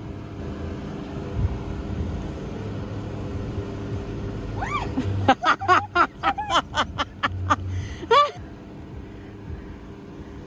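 A car engine idling with a steady low hum. From about five to eight seconds in, a fast run of about a dozen high yelping cries rises and falls in pitch, and these cries are the loudest sound.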